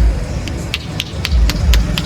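Head massage: the barber's hands tap and chop rapidly on the scalp, giving sharp, even taps about four a second with heavier dull thumps among them.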